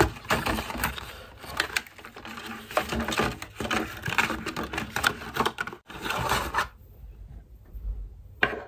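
Cardboard box and plastic packaging being handled while a gaming mouse is taken out: irregular rustling, clicking and tapping. The sounds die down to near quiet toward the end.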